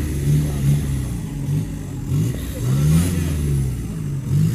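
Off-road 4x4's engine revved up and down in a series of short throttle blips, about one every second, with the biggest rise about three seconds in.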